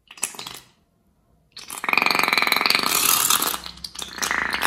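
Rubber balloon being squeezed, forcing thick liquid and air out through its narrow neck: a short sputter, then a loud buzzy, squelching sputter of about two seconds, and another near the end.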